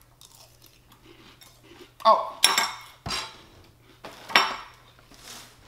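Metal spoon clinking against a glass cereal bowl: several sharp clinks in the second half, after a quiet start.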